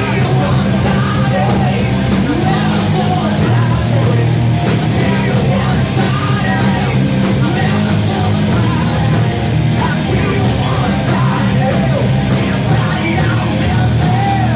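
Rock band playing loudly and without a break, with yelled vocals over the music.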